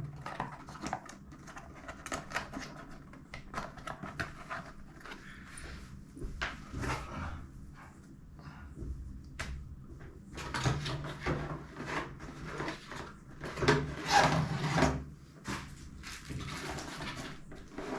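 Headphones and their packaging being handled: scattered clicks, knocks and rustles, busier in the second half.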